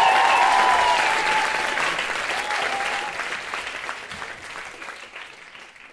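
Audience applauding at the end of a live musical number, with a few voices calling out, the applause fading away steadily to nothing.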